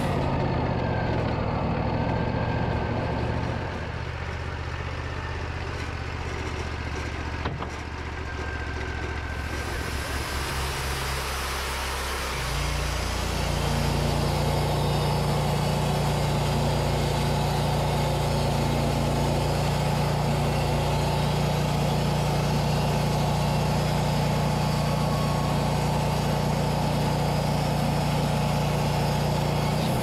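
Portable bandsaw sawmill running while it saws boards off a yellow birch cant. The engine drops to a lower, quieter note about four seconds in, then comes back up about twelve seconds in to a steady, higher note that holds for the rest of the cut.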